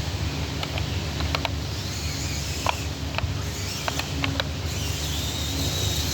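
Toy RC crawler car driving over rough ground, its small electric motor and gears running with scattered ticks and clicks as it bounces along, and a faint whine near the end.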